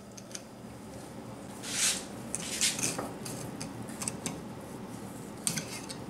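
A knife slicing along a ribbonfish's backbone on a cutting board while filleting: soft scraping strokes and small clicks, with a louder scrape about two seconds in.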